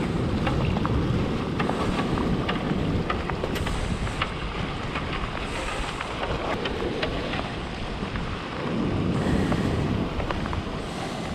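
Wind buffeting the microphone over the wash of a river's shallow, gravelly edge, with small scattered clicks throughout.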